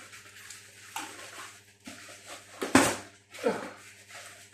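Boxed door closers and their packaging being handled: a few knocks and rustles, the loudest about three-quarters of the way through, over a low steady hum.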